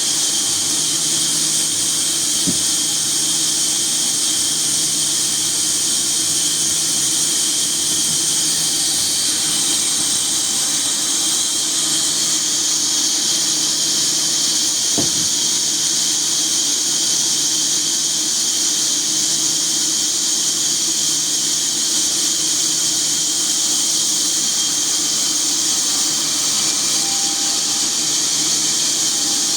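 Sawmill machinery running steadily, a high hiss over a constant whine.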